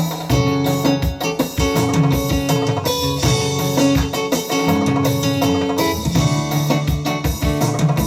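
Live band music over a sound system, with guitar and drum kit playing.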